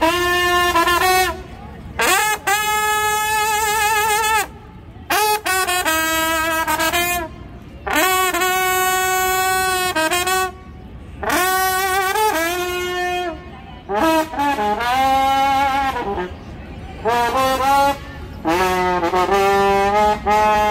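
Slide trombone played solo: a slow melody of long held notes with vibrato, in phrases of a few seconds separated by short gaps, the last phrases dropping lower in pitch.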